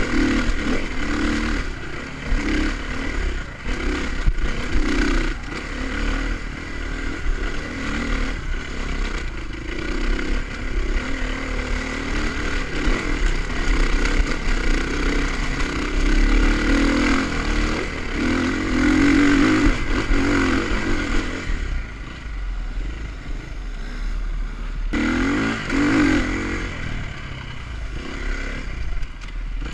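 Dirt bike engine revving up and down under load as it climbs a steep, rutted dirt trail, the throttle rising and falling constantly. It eases off for a few seconds about three-quarters of the way through, then picks up again.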